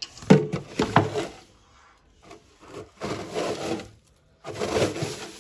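A makeshift scoop cut from a plastic jug scraping and shovelling dry wood-chip bedding in a snake tank. It comes in three bouts, with two sharp scrapes in the first second.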